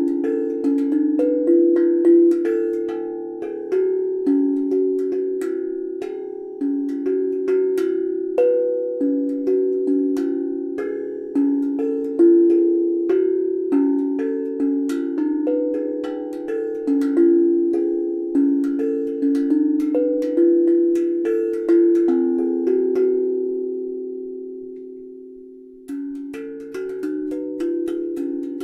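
Homemade steel tongue drum (tank drum) being played: single struck notes, each ringing on and overlapping the next in a slow, calm melody. Near the end the ringing fades away for a few seconds, then the notes start again.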